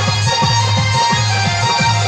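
Dance music with a quick drum beat whose bass strikes drop in pitch, under a held melody line.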